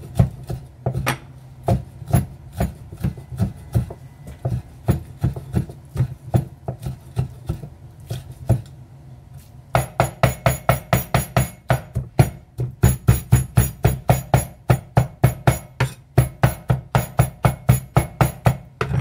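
Cleaver chopping raw shrimp coarsely on a thick wooden chopping board: steady rhythmic knocks about three a second, turning sharper, brighter and a little faster, about four a second, from about ten seconds in.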